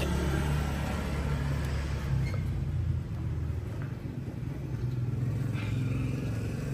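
A motor running steadily nearby, a low rumble with a constant hum.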